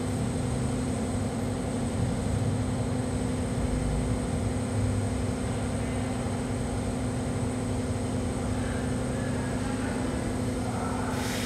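A steady, even machine hum with a low drone.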